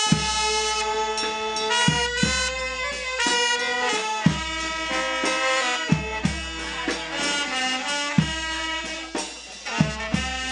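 Small brass band of alto saxophones and trumpets playing a melody in long held notes, with a bass drum struck every couple of seconds.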